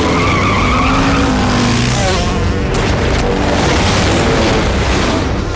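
Vehicle engines running with a deep rumble, mixed with background music.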